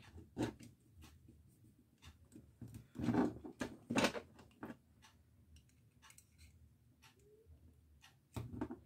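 Handling noise of a soldering iron and screwdriver on a tabletop: scattered small clicks and knocks, with the loudest clusters a little after three seconds, at about four seconds and again near the end.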